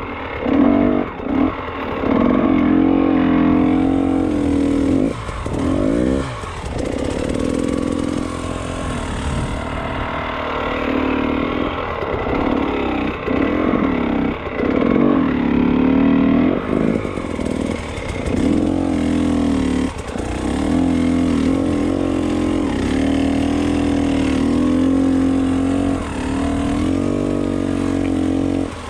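Enduro motorcycle engine revving under load, its pitch rising and falling again and again with the throttle, with short drops where the throttle is backed off.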